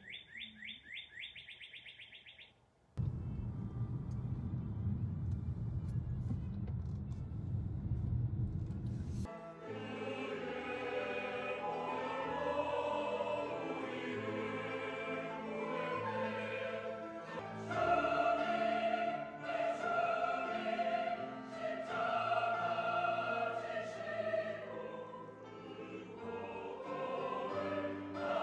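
A northern cardinal sings a quick run of repeated down-slurred whistled notes, which stops about two and a half seconds in. A low rumble follows for about six seconds. Then a large mixed church choir with instruments sings a slow hymn in Korean.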